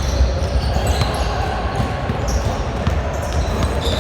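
Indoor volleyball game in a gym: scattered ball and floor thumps and short high shoe squeaks over a steady echoing hall rumble.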